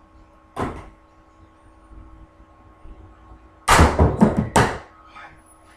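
Knocks and thumps of something striking the wooden floor: one sharp knock about half a second in, then a loud burst of four or five thumps and clatters about four seconds in, and a fainter knock after it.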